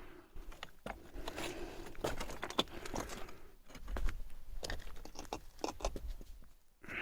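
Scattered light metallic clicks and rattles, as of tools or loose metal parts being handled.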